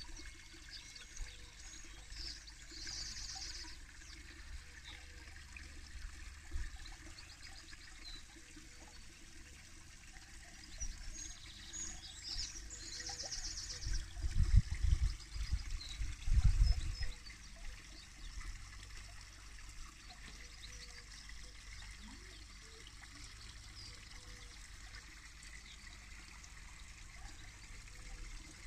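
Small rockery waterfall trickling and splashing steadily into a garden pond. A few loud low rumbles come about halfway through.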